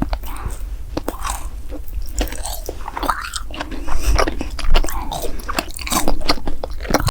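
Close-miked eating: a person biting and chewing crunchy food, with many sharp crackles and wet mouth sounds, loudest around four to five seconds in.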